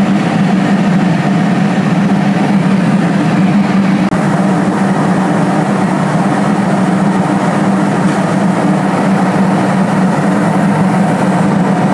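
Airliner cabin noise in flight: a steady rush of engine and airflow noise with a strong low hum. The sound drops out for an instant about four seconds in.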